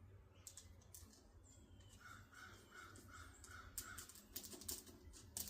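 A faint bird calling six times in a quick, even series about two seconds in, over a steady low hum, with a few light clicks scattered through.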